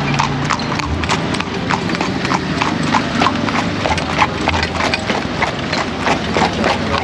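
Horse's hooves clip-clopping at a trot as it pulls a carriage, a quick even beat of about three to four strikes a second.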